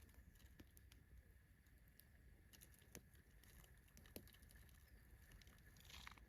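Near silence with faint scattered ticks and light pattering, and two sharper clicks about three and four seconds in.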